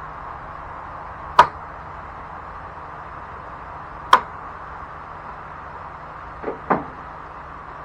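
Sharp clicks of hand tools at work on a riding mower's engine: one a little over a second in, one about four seconds in, and a quick pair near the end, over a steady background hiss.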